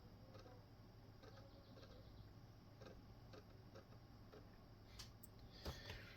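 Near silence: faint room hum with scattered soft, irregular clicks of a computer mouse, and one sharper click shortly before the end.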